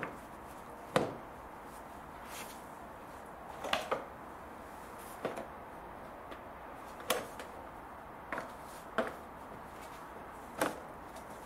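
Hard plastic trim clicking and knocking as a car's front-end air-guide cover is handled and pushed into place beside the radiator. There are about eight separate short knocks spread out, the sharpest about a second in.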